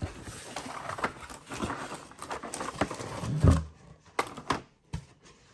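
Rustling and knocking of packaging as a hard shell keyboard case is unwrapped and handled, with a heavy thump about three and a half seconds in.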